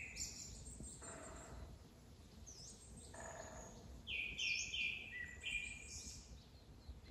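Wild birds calling in woodland: scattered short high chirps, then a quick run of repeated notes about four seconds in, over a faint steady outdoor background.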